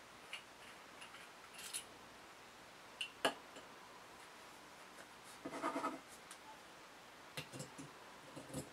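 Small handling sounds from a brass steampunk ballpoint pen and its cap: scattered light clicks, a sharp click about three seconds in, and a short rattling scrape a little past the halfway point. Near the end come a few light knocks as the pen is laid on its stone stand.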